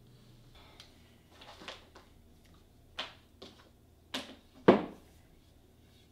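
Brass snap fastener parts handled out of a small plastic bag and set down on a hard work surface: a soft rustle of the bag, then a run of sharp metallic clicks, the loudest near the end.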